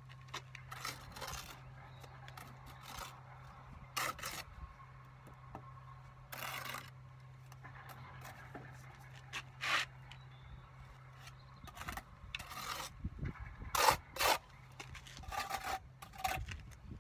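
Steel brick jointer scraping along fresh mortar joints between bricks, in a series of short, irregular strokes, with two louder strokes close together near the end.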